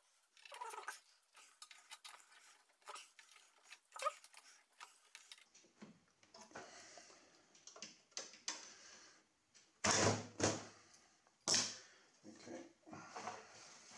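A small screwdriver levering a hex-width core memory board out of a DEC PDP-11/05 card cage: scraping and clicking of metal on the board and its backplane connectors. There are a few louder knocks about ten seconds in and again a moment later as the board works loose.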